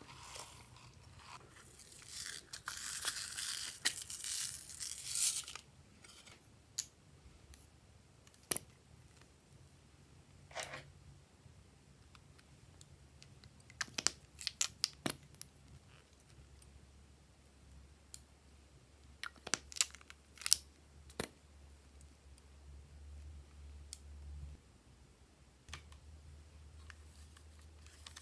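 Crumbly flakes crackling as they are tipped and pushed out of a plastic container into glossy slime for about five seconds. After that come scattered clicks and snips of plastic containers being handled and scissors cutting a plastic tube.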